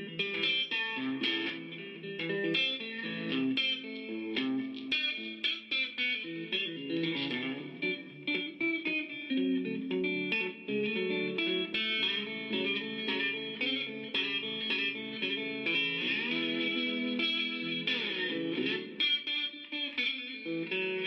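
Instrumental outro music led by a guitar playing quick plucked notes.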